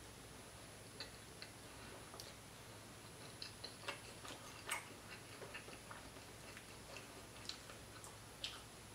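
Faint, irregular small clicks and crackles of eating fried croaker fish by hand: fingers picking crisp meat off the bones, and chewing. One sharper click comes a little before halfway.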